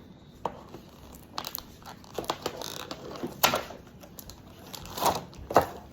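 Plastic packaging crinkling and crackling in irregular bursts as a squishy toy is handled and unwrapped, with a few sharper crackles in the second half.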